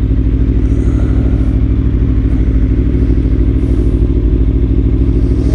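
Aprilia Tuono V4 motorcycle engine running at a steady cruising speed, its pitch and level holding even, with no revving up or down.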